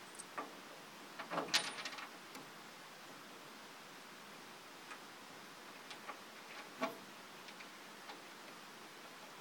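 Light knocks and clicks of a wooden-framed clear plastic cab top being handled and shifted into place, a quick cluster of them about a second and a half in and a single sharper knock near seven seconds.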